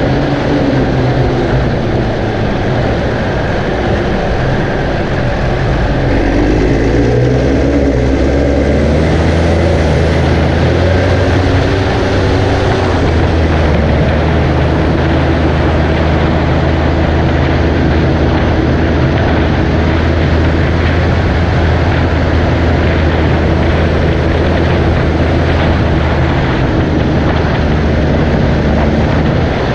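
Farm tractor's diesel engine running hard, its pitch shifting and the sound growing louder about six seconds in, then holding steady.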